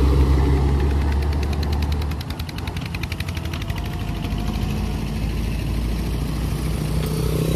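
Road traffic passing close by. A heavy vehicle's engine gives a strong low rumble that falls away about two seconds in, then lighter engines run on, with a motorcycle engine drawing closer near the end.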